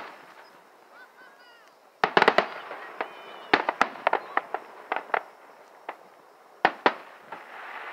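Aerial firework shells bursting: a sharp bang at the start, a rapid cluster of loud bangs about two seconds in, then scattered sharp cracks through the middle and two more bangs near the end.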